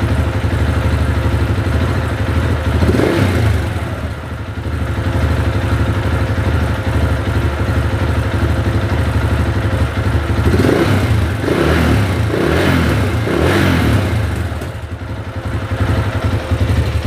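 KTM 690's single-cylinder engine idling, blipped once about three seconds in and then four quick times in a row about ten seconds in. The owner puts the bike's trouble down to a bad fuel pump.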